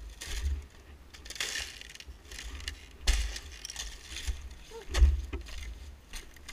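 Boot footsteps crunching over frosty grass and the thin ice at the edge of a frozen puddle, in an uneven walking rhythm. The heaviest steps land about three and five seconds in.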